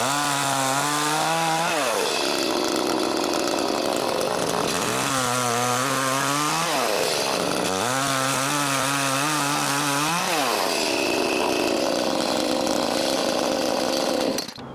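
Echo CS-310's 30.5 cc two-stroke chainsaw engine running at full throttle while cutting into a tree stump. Its pitch drops three times as the engine bogs under load in the wood and rises again in between. The sound stops suddenly near the end.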